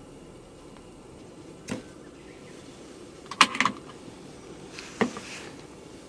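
A corkscrew drawing the cork from a wine bottle: a light click, then a sharp cluster of pops and squeaks about three and a half seconds in as the cork comes free, and another sharp click near the end.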